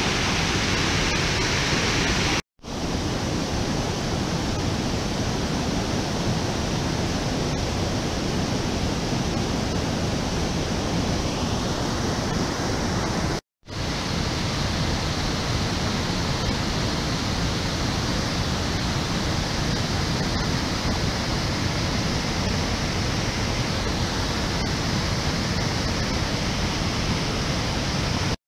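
White water of a swollen river rushing through rocky rapids, a loud, steady, dense rushing noise. It breaks off for an instant twice, about two and a half seconds in and near the middle.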